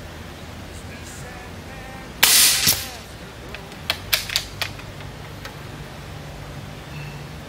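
Suppressed Umarex Gauntlet II .30-calibre PCP air rifle firing one shot: a sharp report a couple of seconds in, with a second crack a moment later. About a second and a half after that comes a quick run of clicks as the action is cycled for the next shot.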